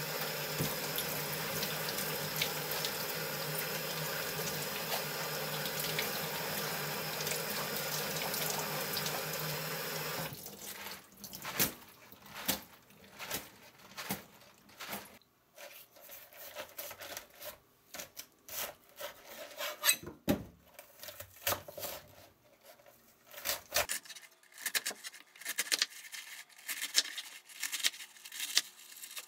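Kitchen tap running onto napa cabbage leaves in a stainless steel sink, cutting off about ten seconds in. Then scattered splashes and rustles as the wet cabbage is shaken to drain, and near the end a run of sharp knife cuts through the leaves onto a cutting board.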